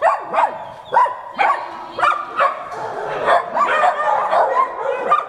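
Dogs barking over and over, led by a beagle: sharp barks that fall in pitch, about two a second, coming thicker and overlapping in the second half.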